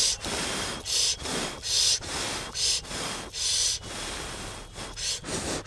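A person breathing hard close to the microphone: about five short, breathy hisses, roughly one every three-quarters of a second, then fainter for the last couple of seconds.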